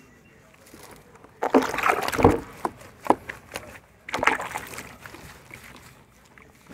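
Soapy water sloshing and splashing in a plastic tub as hands scrub shampoo into a wet puppy, in two louder bursts about one and a half and four seconds in.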